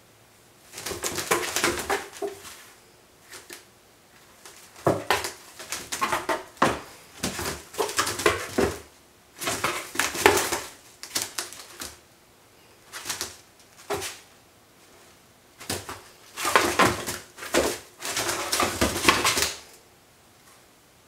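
A cat's claws scratching and scrabbling on the cardboard inside a box, in bursts of one to three seconds with short pauses between.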